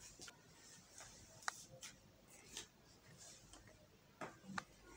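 Near silence with faint rustling and a few light clicks as printed lawn cloth is unfolded and spread out by hand; the sharpest click comes about a second and a half in.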